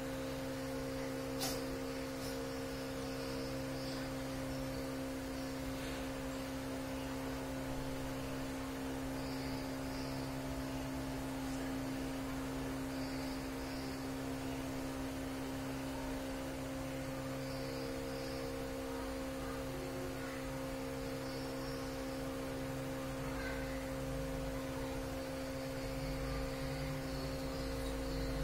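Steady electrical hum of room equipment, two even tones with a low rumble beneath, with faint short high chirps every few seconds and a single click about one and a half seconds in.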